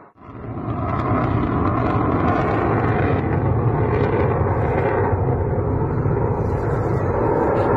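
Jet engine noise from a twin-engine Sukhoi Su-57 fighter flying a display: a loud, steady rumble that cuts in right at the start and builds within the first half second.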